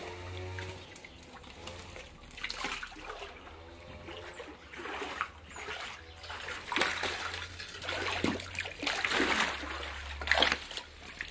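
Shallow water splashing and sloshing in irregular bursts as a person wades in a fish tank and sweeps a hand net through it; the splashes are loudest near the end.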